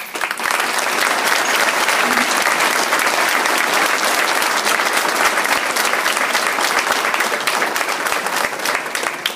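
Audience applauding, a dense crowd of hand claps that starts all at once and fades away near the end.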